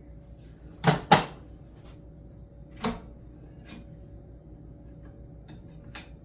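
Sharp knocks and clicks of hand tools working the latch recess in a wooden door edge: two knocks close together about a second in, then a lighter knock and a few faint clicks.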